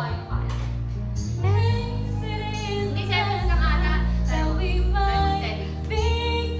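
A woman singing karaoke into a handheld microphone over a backing track with a strong bass line.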